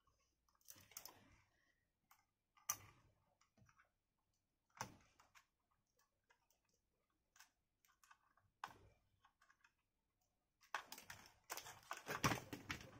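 Scattered light clicks and knocks of a plastic LED driver box and its wires being handled on a workbench, with a dense run of quick clicks near the end.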